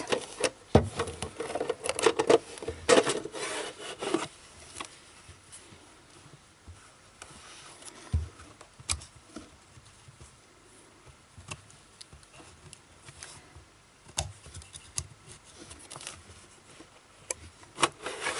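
Handling noise from a Kodak No. 2 Cartridge Hawkeye box camera being closed: rubbing and scraping as the metal film holder slides into its leatherette-covered cardboard case, with small clicks and taps. Busiest in the first four seconds, then only scattered faint taps.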